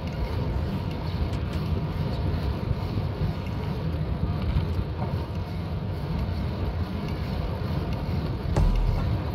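Wind rushing over the microphone of a bicycle-mounted camera while riding, with a steady low rumble from the tyres on the road and a few faint clicks. A short low thump comes near the end.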